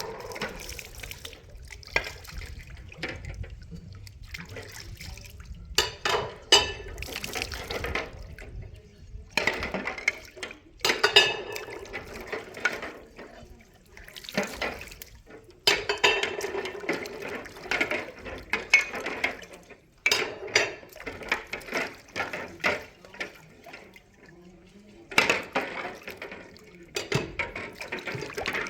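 Washing up: water running on and off, with dishes, pots and cutlery clattering and clinking.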